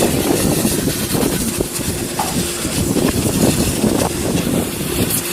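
Pressure-washer jet spraying water onto an air conditioner's outdoor unit: a loud, steady, rough rushing.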